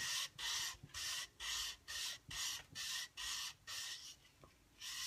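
Cast resin bangle's edge rubbed on wet-or-dry sandpaper under water: a hissy rasping stroke about twice a second, pausing briefly near the end before another stroke. It is wet sanding to smooth the rough cast edge before doming it with resin.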